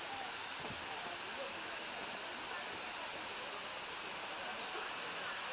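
Steady rush of a mountain stream and its waterfalls, with small birds chirping faintly and high in short repeated phrases.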